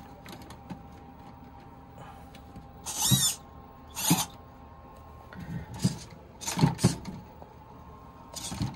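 Suspension servos of a Redcat Gold Digger edition RC lowrider whirring in a series of short bursts as the car lifts and tilts on its suspension.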